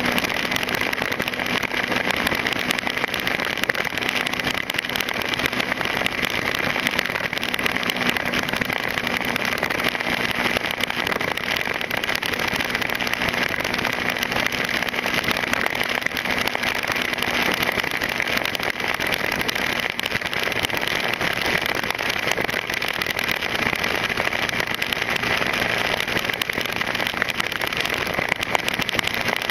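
Motorcycle cruising at a steady speed: a low, even engine hum under a constant rush of wind and road noise.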